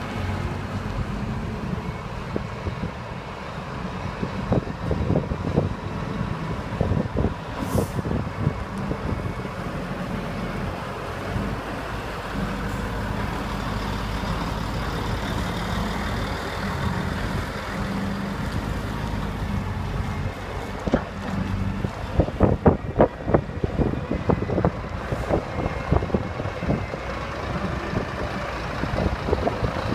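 Diesel engines of articulated tractor units, a Volvo FH and a Scania among them, running as they pull bulk tipper trailers past one after another. Bursts of crackling come and go over the engine sound, most about two-thirds of the way in.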